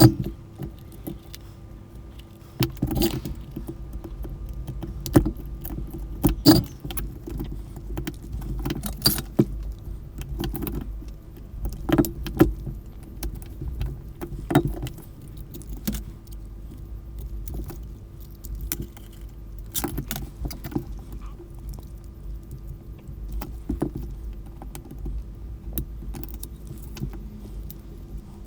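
Small irregular clicks and rattles of plastic and metal parts as a cordless telephone is taken apart by hand, over a steady low hum.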